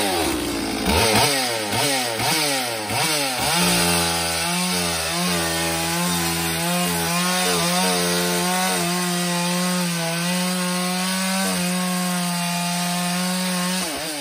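Holzforma G444 two-stroke chainsaw (a Stihl 044 clone) revved up and down several times. Then it is held at full throttle for about ten seconds, the bar sunk in a firewood round, at a steady pitch under load. Near the end it comes off throttle. The chain is not at its sharpest but is cutting well.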